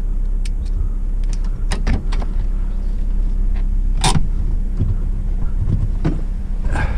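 Vehicle engine idling steadily, with scattered light clicks and one sharp click about four seconds in.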